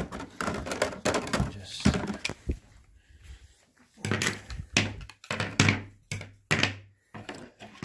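Plastic central-vacuum inlet mounting plates clattering as they are lifted out of a parts box and set down on a stone countertop: a string of short, sharp clicks and knocks.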